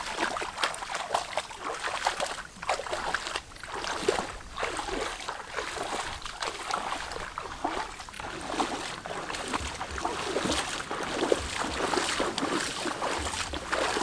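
Legs wading through shallow floodwater: a continuous run of irregular sloshing and splashing steps, several each second.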